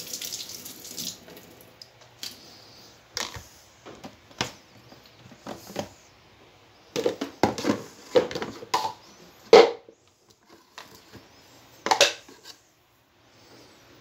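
Plastic blender jugs and a small plastic strainer being handled and set down on a stone countertop: scattered knocks and clatters, the loudest a little past the middle and about two seconds before the end, with a short hiss at the start.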